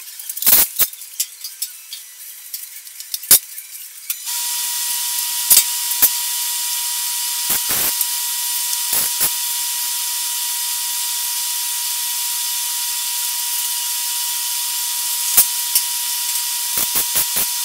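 Welding set switched on about four seconds in, giving a steady hiss with a high whine, after a few clicks and knocks. Short sharp bursts break in, a cluster around eight and nine seconds as the steel stem capping is tack-welded, and more near the end.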